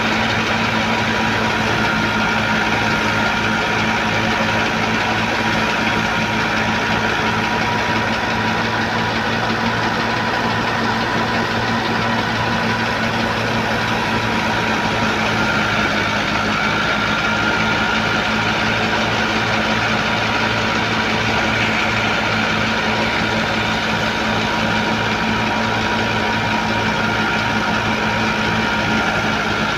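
Wheat thresher running steadily under its driving engine, a constant mechanical hum that holds one pitch.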